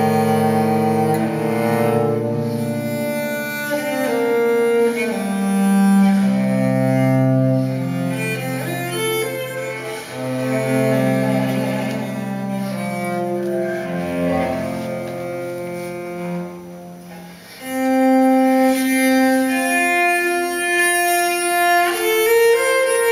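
Recorded classical music for bowed strings played back through Infinity Alpha 30 loudspeakers: long, low sustained notes, then a brief drop in loudness about three-quarters through and higher string lines after it.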